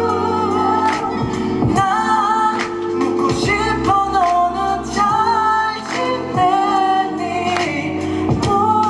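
Live pop ballad music: a bending melody line, sung without clear words, over sustained chords and a regular drum beat.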